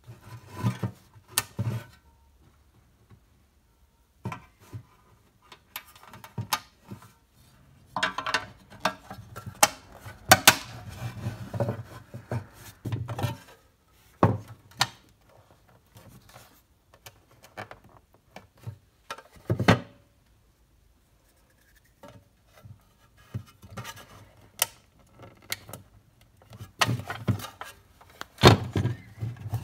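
Parts of a 1960s Mighty Tonka pressed-steel toy dump truck being handled and fitted together on a wooden workbench: irregular clicks, taps and light scrapes of metal parts against each other and the wood, with a few sharper knocks.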